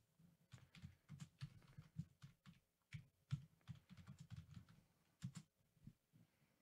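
Faint typing on a computer keyboard: irregular key clicks, a few a second, that stop shortly before the end.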